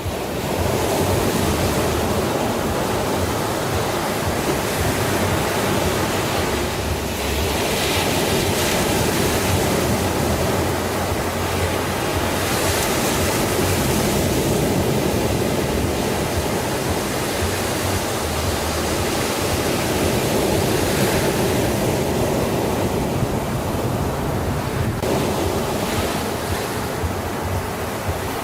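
Sea waves breaking and washing in a continuous surf, swelling louder every several seconds.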